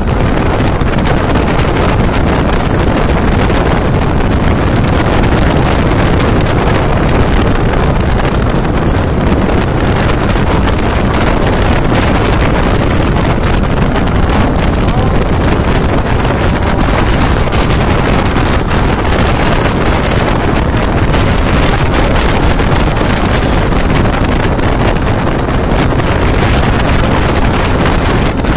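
Steady rush of wind buffeting a motorcyclist's body-mounted microphone at road speed, with the motorcycle's engine and tyre noise running underneath.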